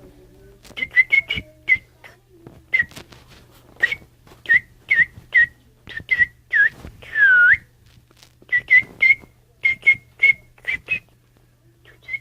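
A bird whistling short chirps in quick runs, with one longer swooping whistle about seven seconds in, among sharp clicks.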